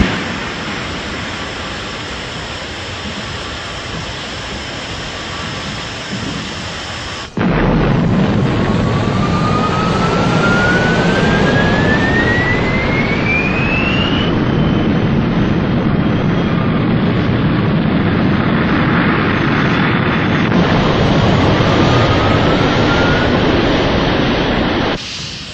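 Jet engines running with a steady, loud roar. The sound cuts abruptly about seven seconds in and comes back louder. A whine then rises steadily in pitch over about five seconds, and a shorter rising whine comes near the end.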